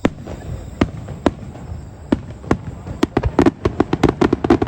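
Fireworks shells bursting in a finale barrage. Separate sharp bangs come about every half second, then a rapid string of many bangs starts about three seconds in.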